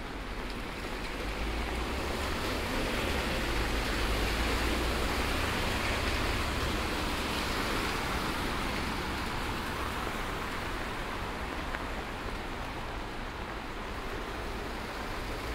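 Steady rain mixed with the hiss of tyres on a wet street. The hiss swells for a few seconds, with a low rumble near the middle as a vehicle passes, then eases.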